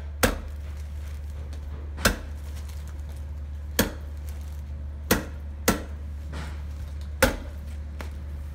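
Staple hammer driving staples through a fire sock's plastic sleeve into a timber frame: six sharp strikes at uneven intervals, two of them close together past the middle.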